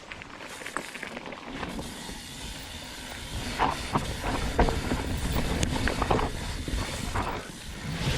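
Commencal Meta HT hardtail mountain bike setting off down a dirt trail: tyres rolling over the ground, getting louder about three seconds in as it picks up speed, with scattered sharp clicks and rattles from the bike.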